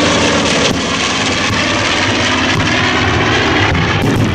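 Formation of three twin-engine WWII bombers (A-26 Invader, Lockheed C-60 Lodestar and B-25 Mitchell) passing overhead, their radial piston engines and propellers giving a steady, loud drone.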